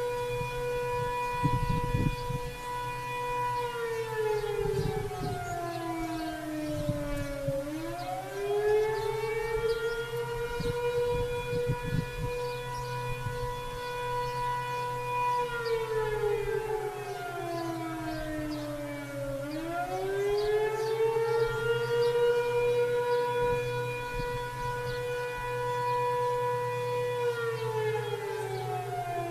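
Sentry 7V8-B outdoor warning siren sounding the attack signal from a distance: a steady wail that drops in pitch and climbs back up roughly every twelve seconds. A low steady rumble and a few brief thumps sit underneath.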